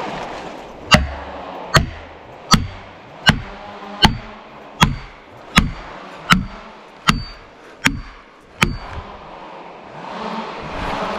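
Axe poll hammering a plastic felling wedge into the cut of a standing tree to tip it over: eleven even blows, about one every three-quarters of a second, each with a short metallic ring. The blows stop about two and a half seconds before the end, and a swelling rush of noise follows.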